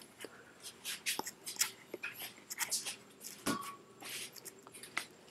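Handling noises: scattered light clicks and rustles, with a dull knock about three and a half seconds in.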